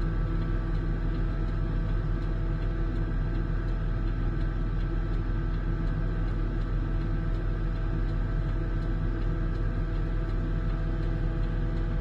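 Heavy rotary snowblower machine's engine running steadily at constant speed: a low, even drone with no change in pitch.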